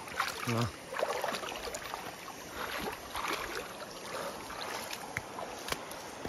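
River water swishing and splashing around a person's legs as he wades through the shallows, in uneven surges with small clicks.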